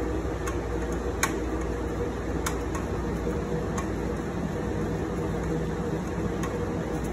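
Steady hum of cooling fans and running equipment in a telecom equipment room, with a few sharp, light metal clicks as a quarter-inch nut driver works on the fan's mounting hardware in a steel fan tray.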